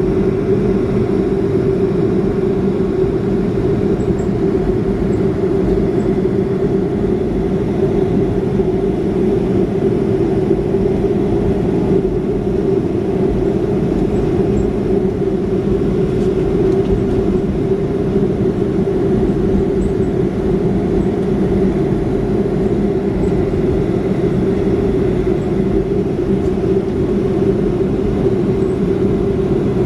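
Boeing 737 cabin noise: the jet engines' steady drone heard from inside the cabin, with an even low hum under it.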